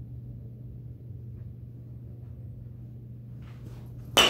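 A steady low hum, then near the end one sharp crack of a baseball bat hitting a ball, with a short ringing tail.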